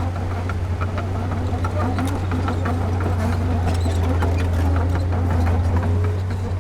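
Diesel engine of heavy construction equipment running steadily under load, with scattered sharp clanks.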